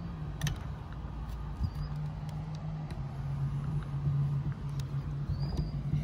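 A steady low hum throughout, with scattered clicks and scrapes of hands and shoes on a rusty metal ladder against a brick wall as someone climbs it.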